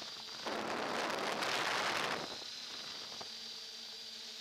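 Multi-rotor motors and propellers humming steadily through a low-cost on-board camera's microphone. About half a second in, a gust of wind buffets the microphone with a loud rush that lasts about two seconds.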